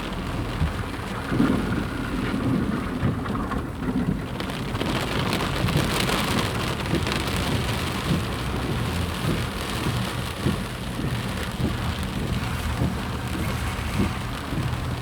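Flash-flood water rushing steadily, with a low rumble underneath.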